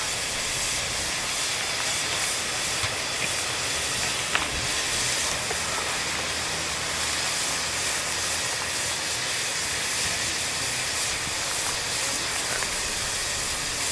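Steady hiss of steam from a Victorian Railways K class 2-8-0 steam locomotive standing on a turntable, with a faint low hum underneath. A single sharp click sounds about four seconds in.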